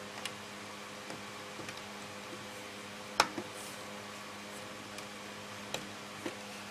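Light clicks and taps of a plastic CPU power-cable connector being handled and pushed into its motherboard socket, with one sharp click about three seconds in, over a steady low hum.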